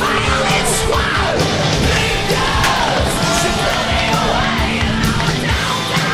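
Loud heavy rock music with yelled vocals over a driving drum beat.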